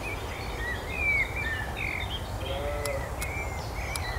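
Birds singing, a string of short chirps and whistled notes with no let-up, over a steady low rumble of background noise.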